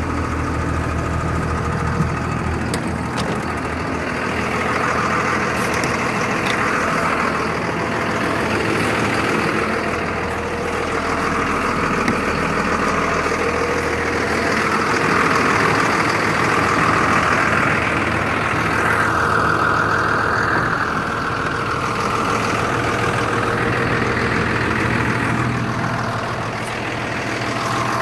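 An old bus's diesel engine idling steadily, still cold a minute after a cold start in winter without a block heater.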